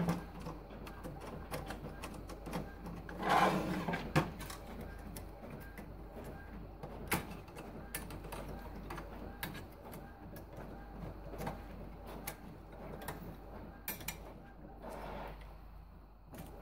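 A screwdriver and fingers working at the plastic frame of an Epson XP-342 inkjet printer, making scattered light clicks and taps while a screw holding the circuit board is loosened.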